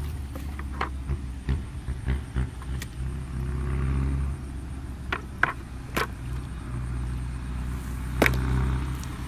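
Hands splashing and squelching in shallow muddy water, with several sharp slaps and clicks, the loudest about eight seconds in. Under it runs a steady low droning hum that drops out now and then.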